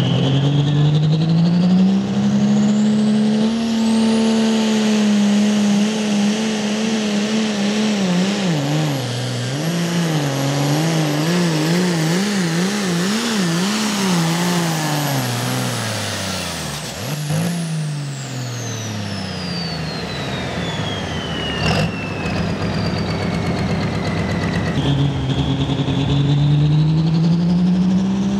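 Modified Ford pulling tractor's diesel engine at full power under load. Its pitch climbs and holds high with a high whistle over it, then surges up and down about once a second for several seconds before dropping away as the pull ends, the whistle winding down after it. Near the end another pulling tractor's engine starts to build.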